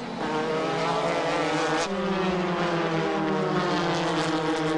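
Formula 3 race car engine running hard at high revs. About two seconds in there is a click and the pitch steps up, then it sinks slowly.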